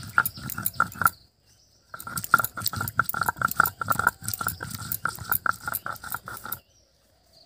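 A stone muller is rubbed back and forth on a flat stone grinding slab (shil-nora), grinding ginger and cumin into a paste. It makes a quick run of gritty scraping strokes, several a second, that stops briefly about a second in and again near the end.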